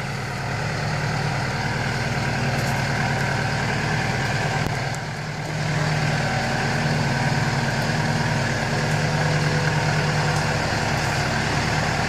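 LS 47-horsepower compact tractor loader backhoe's diesel engine running steadily as the tractor climbs a steep little hill. The sound dips briefly about halfway through, then comes back steady and a little louder.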